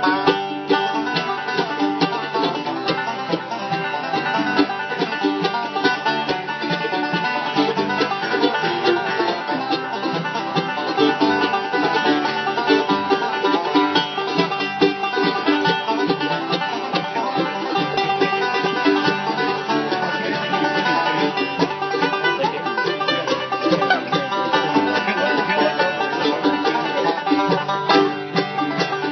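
Banjo picked in a fast, unbroken run of notes.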